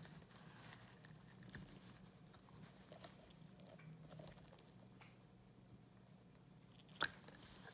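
Faint scratching and small ticks of excess cured resin being picked and scraped out of the recesses of freshly demolded resin dice, with one sharp click near the end.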